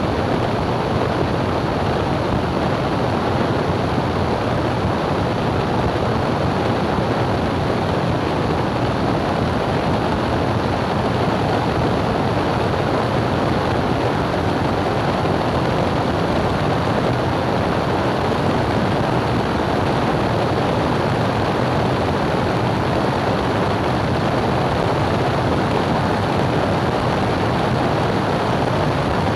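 Small propeller plane in cruise: a steady, unbroken rush of airflow and engine noise.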